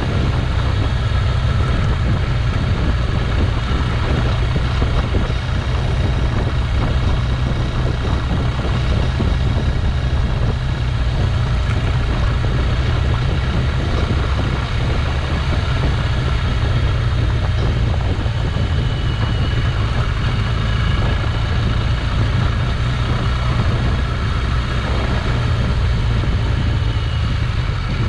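A motorcycle running steadily on the road, a continuous low drone that holds level with no clear revving or gear changes.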